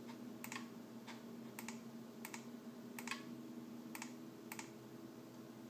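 About six sharp computer mouse clicks, irregularly spaced, over a steady low hum.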